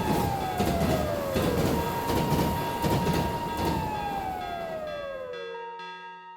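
A siren tone holds high and then glides steadily down, twice, over the rumble and clatter of a running train. Everything fades out about five seconds in.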